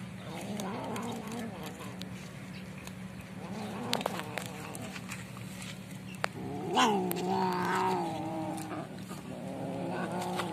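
Cats growling over food, low and wavering, with one louder drawn-out yowl about seven seconds in that starts higher and sinks into a held growl.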